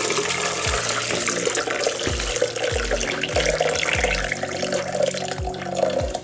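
Pineapple syrup with pulpy fruit pieces pouring from a metal bowl into a plastic blender jar, a steady splashing pour that stops at the end.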